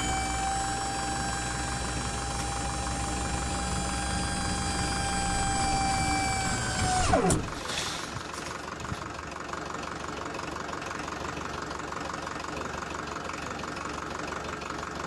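Small electric motor whining at a steady pitch for about seven seconds as it tips up a toy tractor's trolley to dump its load of soil. The whine winds down and stops about seven seconds in, leaving a lower steady hum.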